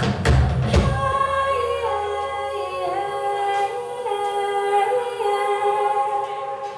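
Drum hits stop about a second in, then several voices sing a long held harmony with small slides in pitch, fading out at the song's end.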